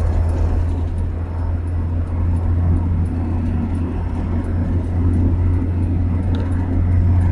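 Steady low rumble of a car's engine and tyres, heard from inside the cabin while it drives.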